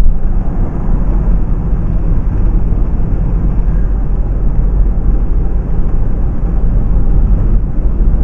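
In-cabin road noise of a Renault Mégane 1.5 dCi driving on a wet road: a steady, loud, low rumble with tyre hiss.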